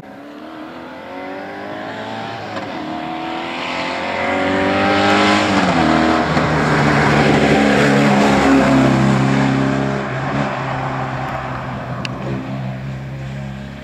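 Rally car engine at full throttle approaching along the stage, its pitch climbing and dropping several times as it shifts up through the gears, loudest about eight seconds in and then fading away.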